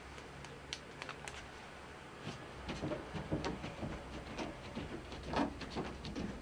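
Scattered light knocks, taps and rustles of someone moving in the room over a low steady hum, starting about two seconds in and growing busier toward the end.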